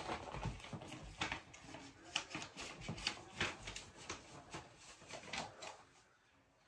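Footsteps with light rustling and scattered clicks and knocks as a person walks away across a room, fading out near the end.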